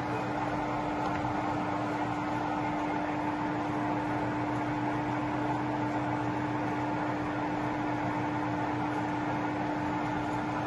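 Colchester Student 1800 centre lathe running without cutting: a steady mechanical hum from the 3 hp motor and headstock gearing, with a constant whine.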